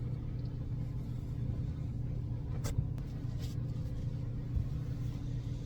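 A steady low hum or rumble, with a few faint soft clicks or rustles about two and a half to three and a half seconds in.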